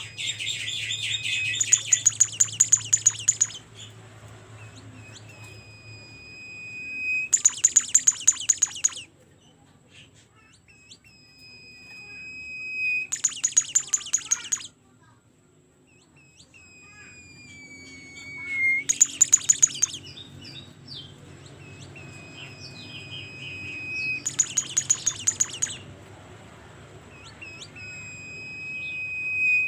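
A songbird of the kind Indonesian bird-keepers call 'Bimoli' singing steadily and loudly: each phrase is a thin, drawn-out whistle that swells, then a rapid burst of about ten sharp, loud notes, repeated about every five to six seconds.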